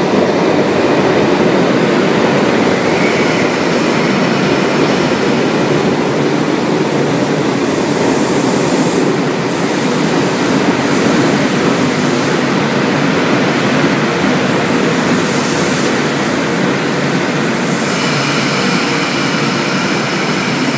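A Sydney Trains K-set double-deck electric train runs into an underground platform with a loud, steady rumble of wheels and motors, echoing in the station. Thin high tones come in near the end as it slows.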